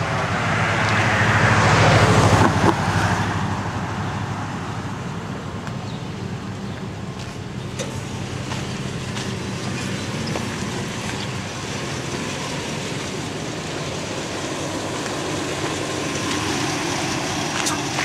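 Street traffic: a vehicle passes in the first three seconds, then a steady engine hum with traffic noise continues.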